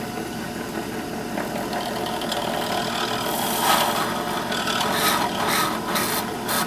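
Benchtop drill press running, its bit boring out a screw hole in a 3D-printed plastic enclosure. The motor hums steadily, with the scraping of the bit cutting the plastic louder in the second half.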